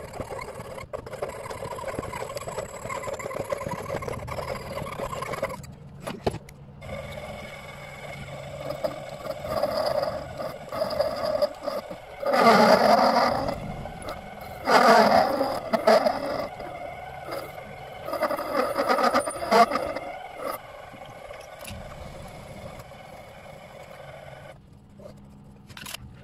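Scraping from workshop tool work over a low steady hum, with three louder scraping bursts: a little before halfway, just after halfway, and about three-quarters through.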